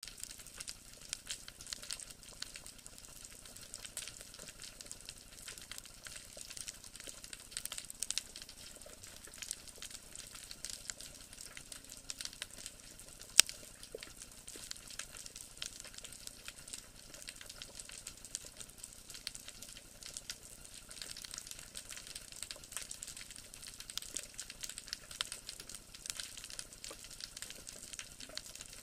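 Underwater crackling: a dense, steady patter of tiny clicks, with one sharp, much louder click about halfway through.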